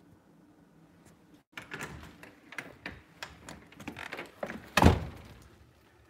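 A house door being unlatched and opened: a run of clicks, rattles and knocks, then one loud thunk just before the end.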